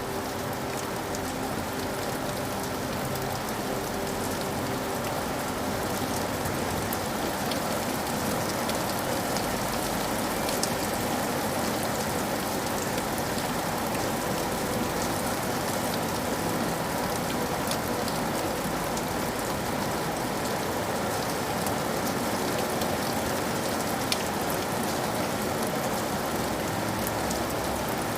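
Steady rain falling on a surface, a dense even hiss with scattered individual drop ticks.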